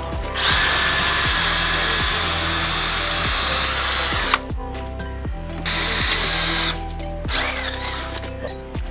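Cordless drill boring holes through plywood: one steady run of about four seconds, then a shorter run of about a second, then a few light clinks.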